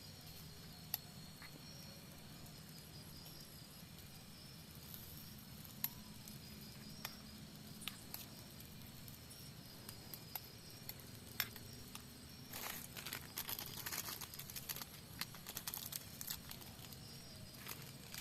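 Quiet forest ambience with a faint, high pulsing insect call and scattered sharp clicks. About twelve seconds in, a few seconds of close crackling and rustling, like handling of leaves or plastic.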